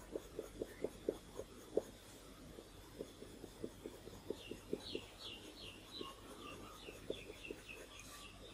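Coloured pencil making short, quick fur strokes on paper, a run of soft ticks about four or five a second. From about four seconds in, a bird calls faintly with a run of short falling chirps.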